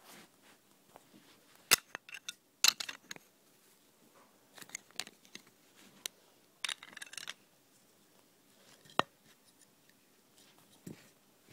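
Plastic toy building bricks clicking and clattering as they are handled, in a scattering of sharp clicks, the loudest about two and three seconds in.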